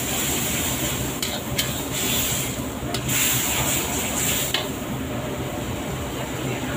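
Metal ladle stirring and scraping chopped chili and tomato frying in a wok, with a sizzle and a few sharp scrapes of metal on the pan. The sizzle drops back about four and a half seconds in.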